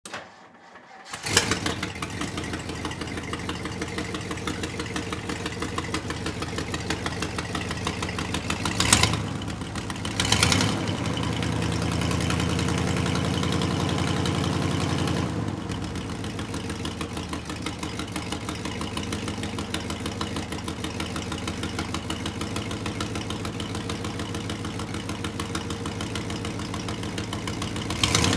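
A vehicle engine starts about a second in and settles into an idle with a fast, even pulse. It is revved briefly twice, held at higher revs for about five seconds, then drops back to idle.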